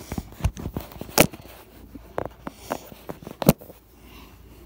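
Handling noise of a phone camera being set in place: a scatter of short knocks, taps and rustles, with two sharper knocks about a second in and about three and a half seconds in.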